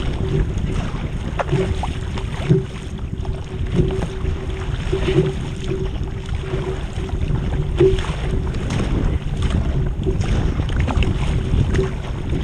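Wind buffeting the microphone, with water splashing and sloshing around a surf ski as it is paddled on open sea, and a faint steady hum underneath.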